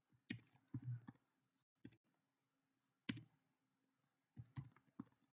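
Faint computer keyboard keystrokes: single clicks spaced irregularly, some in quick pairs, about eight in all.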